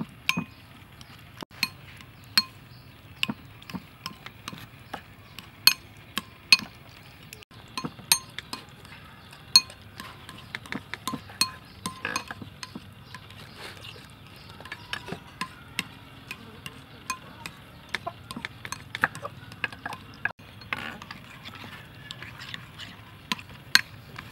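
Metal spoon clinking and scraping against a bowl while stirring tofu in sauce, a knife chopping limes on a wooden board partway through, then a spoon stirring a thick sauce in a bowl. Irregular sharp clinks and taps come throughout.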